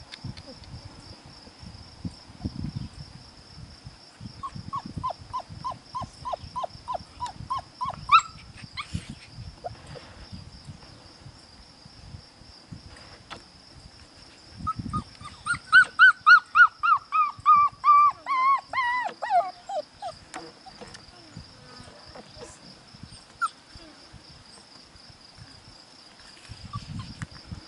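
Young puppies yelping. A run of about a dozen short, evenly spaced yips comes a few seconds in. About fifteen seconds in there is a louder run of yelps that slide down in pitch, and this is the loudest part.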